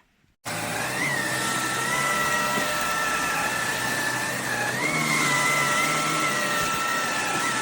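Vax HomePro Plus cordless stick vacuum cleaner switched on about half a second in and then running steadily, its motor giving a high whine that wavers a little in pitch.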